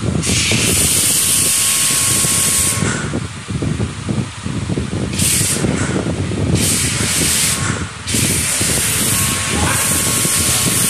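Pressure-washer foam lance spraying car-wash foam onto a car's bodywork, a loud hiss. It starts just after the beginning, stops for a couple of seconds, comes back in a few short spurts, then runs steadily from about eight seconds in.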